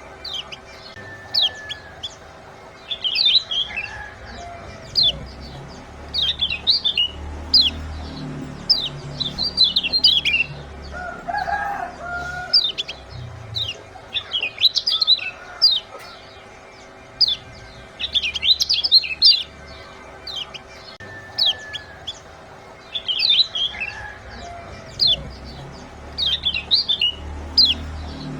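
Kecial kuning, a small Lombok white-eye, giving rapid, sharp 'ciak' chirps in quick bursts every second or two, as in a call track played to prompt caged birds to sing. A faint steady hum runs underneath, and a lower call comes about twelve seconds in.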